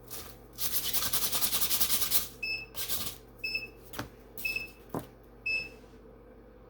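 A sticky lint roller rolled over fabric with a fast crackling rasp, then a heat press timer beeping four times, once a second, as its countdown ends.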